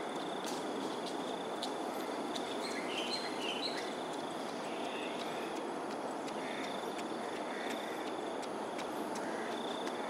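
Evening outdoor ambience: a steady low rush of background noise, with a thin, high insect trill that comes and goes and a few short bird chirps about three seconds in.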